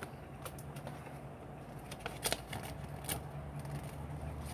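Cardboard snack box being handled: a few faint clicks and rustles, over a low steady hum.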